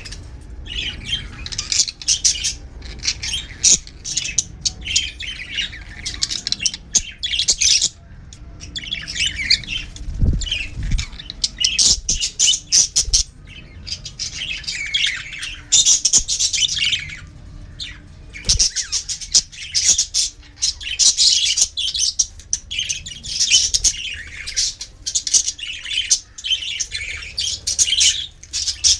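Pet budgerigars chattering and chirping in quick bursts of high, warbling calls, with a couple of low thumps about a third and two-thirds of the way in.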